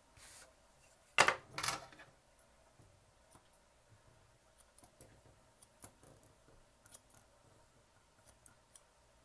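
Grooming shears snipping through a Maltese's long silky coat: a run of faint, quick snips. Before them, about a second in, come two louder swishes as the coat is brushed.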